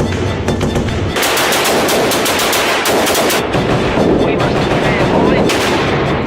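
Rapid gunfire, many shots in quick succession, several a second.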